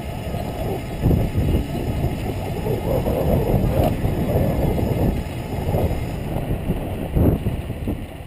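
Wind buffeting the microphone of a handlebar camera on an electric bike moving at about 20 mph, an uneven low rush that swells in gusts, loudest about a second in and again near the end.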